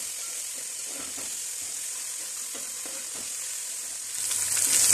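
Sliced tomatoes sizzling in hot oil with fried onions in a metal pot, stirred with a slotted metal spoon that scrapes lightly now and then. The sizzle gets louder about four seconds in as the stirring picks up.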